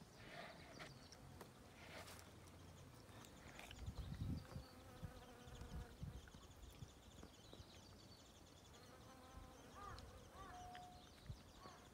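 Faint buzzing of bees working the blossoms of flowering plum trees, a steady, even hum with a few overlapping tones. A brief low rumble comes about four seconds in.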